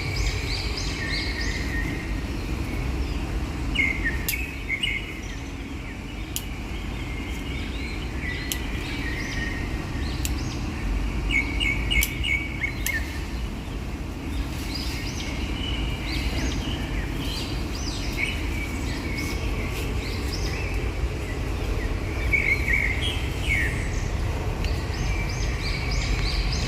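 Small birds chirping and calling in short repeated phrases throughout, over a steady low rumble, with a few sharp clicks.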